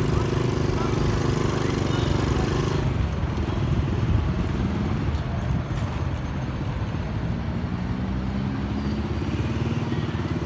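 Street traffic: motorcycle and other vehicle engines running and passing, a steady low engine rumble with drifting pitch. The higher hiss drops away abruptly about three seconds in.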